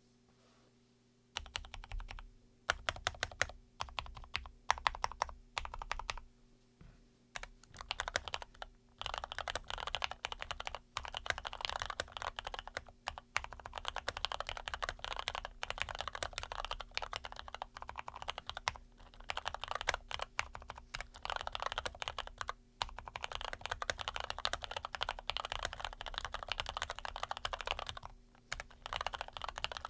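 Typing on an ABKO AR87 mechanical keyboard with lubed and filmed Cherry MX Red linear switches. After a moment of quiet come a few short runs of keystrokes, then steady fast typing broken by brief pauses.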